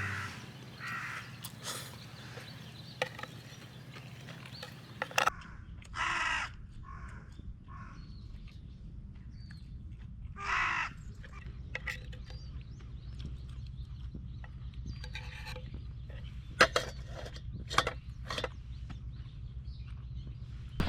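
A few short, harsh bird calls, each about half a second long, over a low steady hum, with scattered sharp clicks and knocks.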